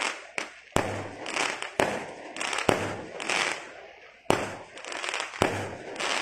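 Fireworks bursting one after another, about six sharp bangs, each followed by a fading crackle and sizzle.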